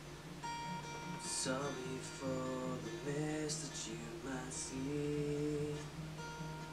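Taylor acoustic guitar played with a capo, with a man singing a slow melody over it from about a second in.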